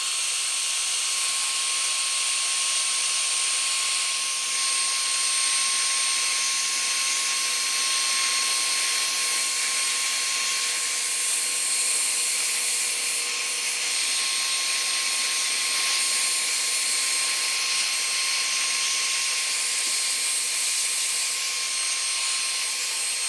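Hair dryer blowing hot air continuously, a steady rush of air with a constant whine through it, held on the TV's circuit board to heat its solder joints.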